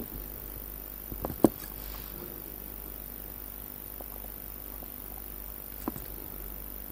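A few small sharp clicks of metal tweezers and fingers handling a watch movement in its holder: a quick cluster about a second and a half in, the loudest, and another single click near six seconds, over a faint steady hum.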